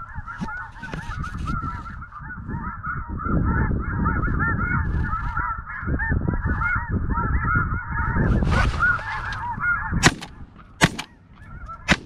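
A constant chorus of snow goose calls, many overlapping honks. About ten seconds in, a semi-automatic shotgun fires twice, less than a second apart, with a third shot right at the end.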